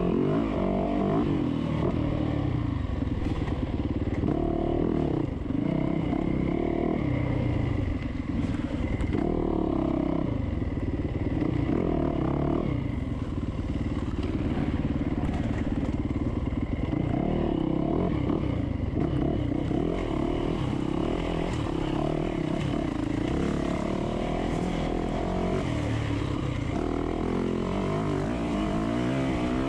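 Dirt bike engine running hard under the rider, its note rising and falling as the throttle opens and closes along a winding trail.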